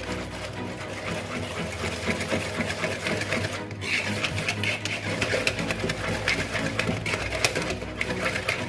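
Wire whisk beating a runny egg, sugar, oil and yogurt batter in a wooden bowl: a fast, steady run of tapping clicks as the wires strike the bowl and slap the liquid.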